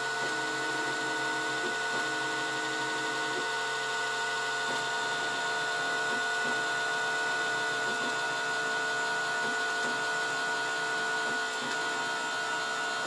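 Single stepper motor driving a 3D printer's belt-driven Z axis through a two-stage reduction, giving a steady whine made of several held tones. The lower part of the sound changes pattern about four to five seconds in.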